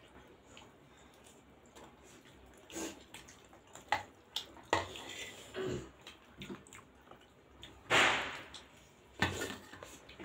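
Close-miked wet eating sounds: chewing and slurping of pork momos and achar dipping sauce, in short scattered bursts, with one longer, louder slurp about eight seconds in.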